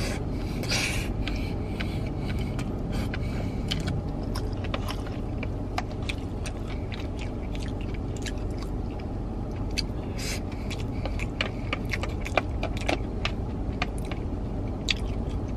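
Chewing and mouth sounds with many small clicks and taps of chopsticks against a plastic bowl, over a steady low vehicle rumble.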